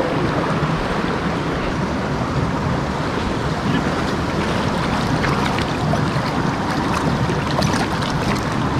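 River water rushing steadily over and between boulders, with a few faint clicks in the second half.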